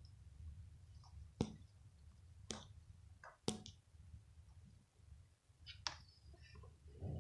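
Handling noise: a few sharp clicks and taps, about one a second at first, from a hand and phone moving against a cardboard shoe box, over a faint low rumble.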